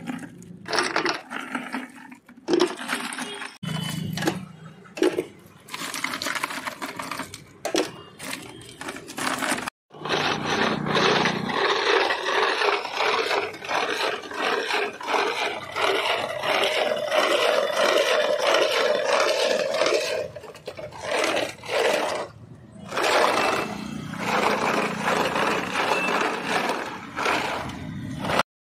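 A galvanized metal canister is spun by hand in a wooden tub packed with ice blocks, churning its sugar-and-water mix to freeze it. Metal and ice grind and scrape in a continuous rough rasp, broken by a few abrupt cuts. Near the start, ice cubes are handled in a plastic bucket.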